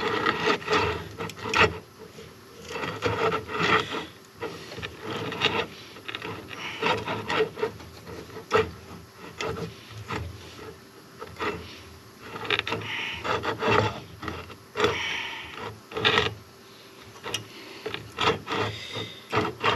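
Hand tap being turned through a drilled hole in a cast-iron Ford FE engine block, cutting threads with irregular scraping, creaking and sharp clicks, backed off now and then so the tap doesn't bind.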